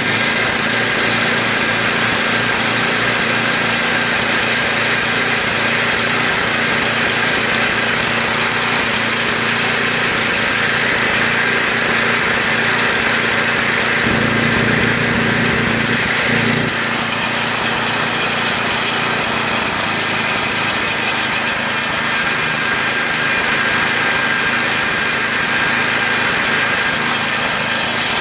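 Snowblower's single-cylinder gas engine running steadily at about 3,200 rpm while it warms up.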